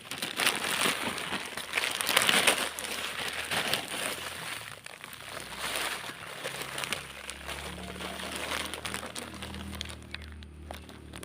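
Plastic polybag crinkling and rustling in irregular scrapes as it is handled and opened to dig out turmeric rhizomes, with soil crumbling. A faint low hum comes in about seven seconds in.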